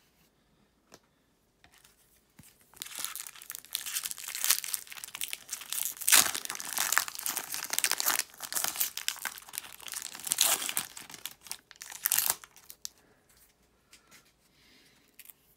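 Foil wrapper of a Topps Chrome trading-card pack being torn open and crinkled by hand: a dense crackle of foil that starts a couple of seconds in, lasts about ten seconds and stops near the end.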